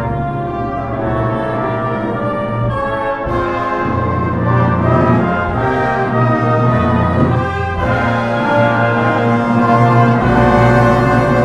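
Theatre pit orchestra playing a brass-led instrumental dance passage, with sustained full chords over a bass line that steps to a new note every second or two.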